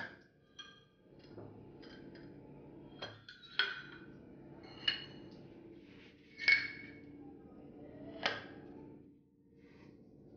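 Glass clip-top storage jars clinking as they are handled and their wire-clamped glass lids are shut: a series of sharp glass clinks, each ringing briefly, the loudest about six and a half seconds in.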